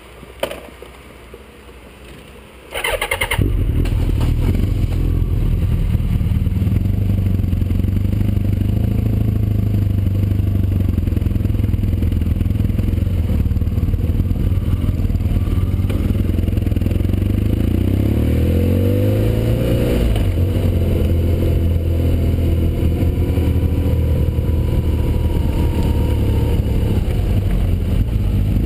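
BMW R1200GS flat-twin boxer engine starting up just under three seconds in, then idling. About two-thirds of the way through it pulls away, its pitch rising and falling as the bike accelerates, then it runs on steadily under way.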